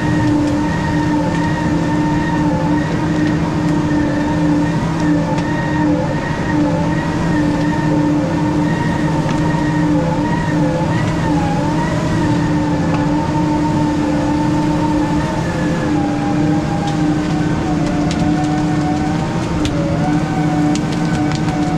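Weiler S340 grapple skidder running under load while dragging logs: a steady diesel engine drone with a wavering whine above it. The whine drops a little in pitch in the last few seconds, and a few faint clicks come near the end.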